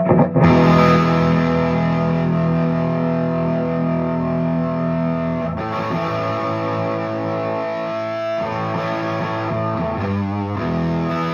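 Gibson ES-335 electric guitar played through a Fuchs Train-45 tube amp fitted with 6V6 power tubes. Full chords are strummed and left to ring, moving to a new chord every few seconds.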